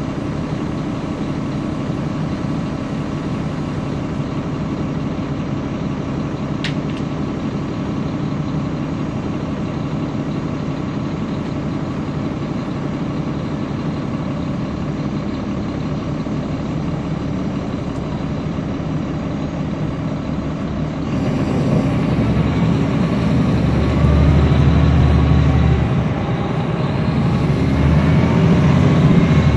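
Caterpillar C13 diesel engine of a NABI 416.15 transit bus, heard from on board: it runs steadily at idle for about twenty seconds, then the bus pulls away and the engine revs up. About five seconds later there is a brief dip as the ZF automatic transmission shifts, and the engine climbs again.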